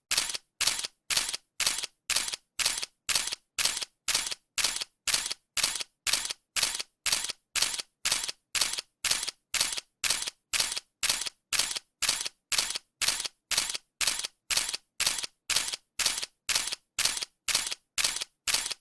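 Camera shutter clicking over and over at an even pace, about two clicks a second, each a sharp click in two quick parts.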